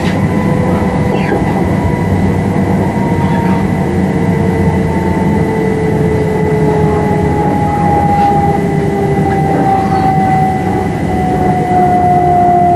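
Class 357 electric train running over a steady rumble of wheels on rail, its traction motor whine falling slowly in pitch as the train slows.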